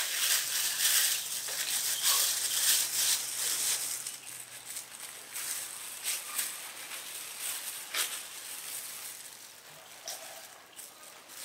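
Plastic bag crinkling and rustling as boiled corn is handled inside it, loudest in the first few seconds, then thinning to a few sharp crackles.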